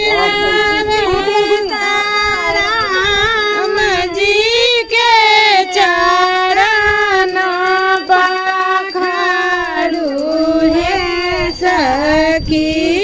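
High female voice singing a Hindu devotional song in long, wavering held notes, without a break.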